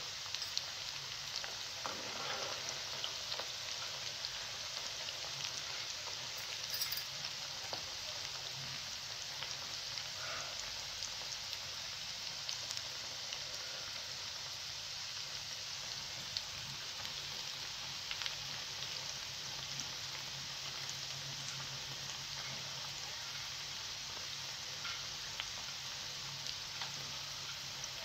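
Rice pakoras deep-frying in medium-hot oil in a pan: a steady sizzle with scattered small crackles and pops.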